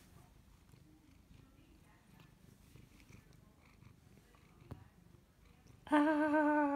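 Domestic cat purring quietly with a low, steady rumble. Near the end a person's voice breaks in with a loud, drawn-out cry that wavers in pitch.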